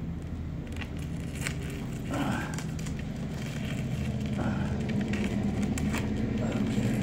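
Single-edged razor blade slicing through the plastic interlayer of laminated safety glass along a scored and cracked edge, with scattered small clicks and crackles, over a steady low hum.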